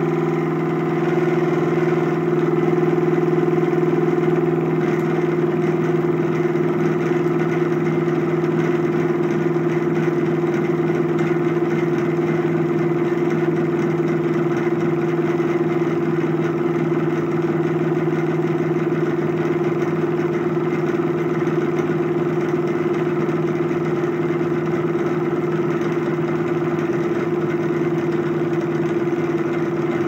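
Air-conditioner compressor running bare, out of its shell, with its motor windings and pump exposed: a steady mechanical hum with two strong low tones under a rattly wash. It is smoking as it runs.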